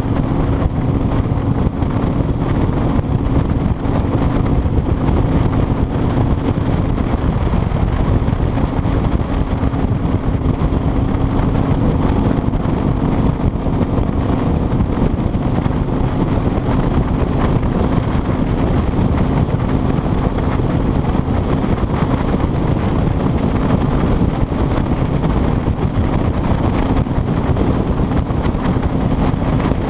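Kawasaki Vulcan 2000's 2-litre V-twin engine running steadily at highway cruising speed, mixed with wind rushing over the chest-mounted microphone.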